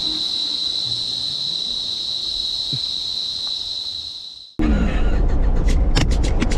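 Steady high-pitched drone of cicadas, which fades out about four and a half seconds in. It gives way suddenly to the low rumble of a car driving, with a few sharp clicks.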